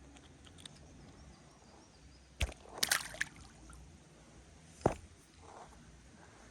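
Water sloshing and splashing in a shallow creek, with a few short, sharp splashes about two and a half seconds in and again near five seconds.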